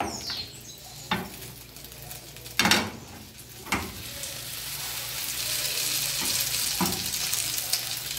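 Oil and an omelette sizzling in two frying pans on a gas stove, the sizzle growing louder from about halfway through as the fresh oil heats. A few sharp knocks of cookware against the stove come in the first half and once near the end.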